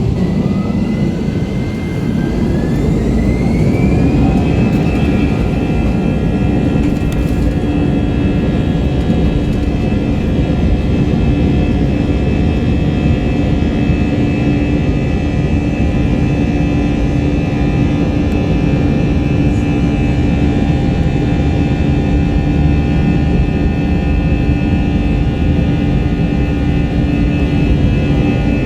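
Airbus A321 jet engines spooling up to takeoff thrust, heard inside the cabin: a whine that rises over the first few seconds, then steady loud engine noise over a deep rumble.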